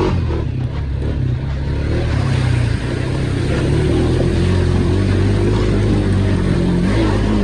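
ATV engine pulling hard through deep mud, its pitch climbing slowly, then dropping off right at the end.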